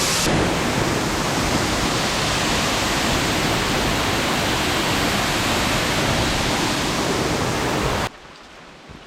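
Waterfall heard from right beside it: a loud, steady rush of falling water that cuts off suddenly near the end.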